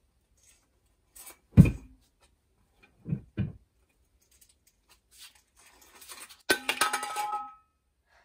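Rummaging through a clothes closet: a heavy thump, two softer knocks, then rustling and a clatter of clothes hangers clinking on the rail near the end.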